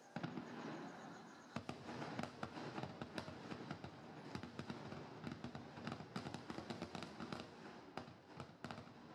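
Aerial fireworks barrage: a rapid run of shell bursts, several bangs a second over a dense crackle. It starts suddenly and thins out near the end.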